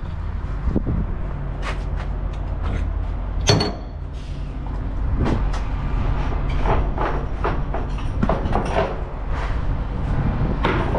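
Clunks, knocks and clicks from handling a diesel fuel-pump nozzle and the truck's fuel fittings, with one sharp clunk about three seconds in, over a steady low hum.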